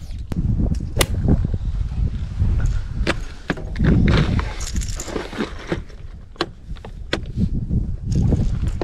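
Wind buffeting the microphone, with a string of sharp clicks and knocks from fishing gear being handled in a small boat.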